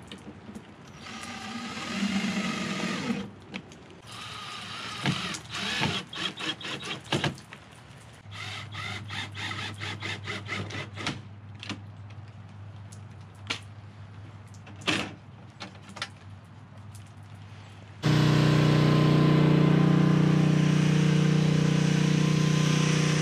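Cordless drill driving screws into a wooden hutch door to fit latch hardware: a whirr of about two seconds near the start, then knocks and clicks of the hardware and short bursts. Near the end the sound changes suddenly to a gasoline generator running with a loud steady hum.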